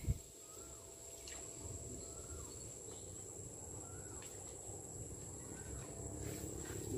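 Faint rural field ambience: a steady high insect whine with short falling chirps from a calling animal about once a second, over a low rumble. A short knock sounds right at the start.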